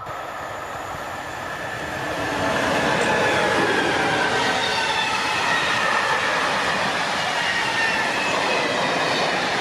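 Freight train of hopper wagons hauled by an SNCF BB 27000-series electric locomotive passing close by. The rolling rumble of the wheels on the rails grows loud about two seconds in and holds steady, with faint high whines from the wheels.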